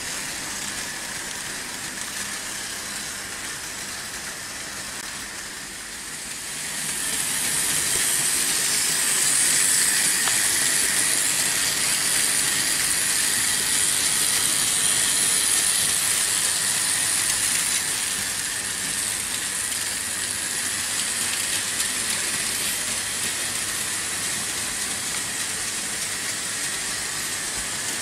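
Vintage Märklin H0 model trains running on metal M-track: a steady rushing noise of wheels and motors that grows louder about seven seconds in and eases off slightly after about eighteen seconds.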